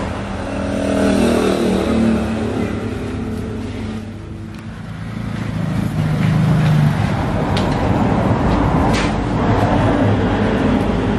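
Road traffic: a passing motor vehicle's engine, its pitch falling as it goes by, then another engine running. Two light knocks come near the end.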